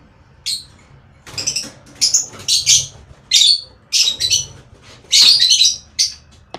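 Lovebirds calling in a series of short, high-pitched chirps, about eight in all, the loudest and longest about five seconds in.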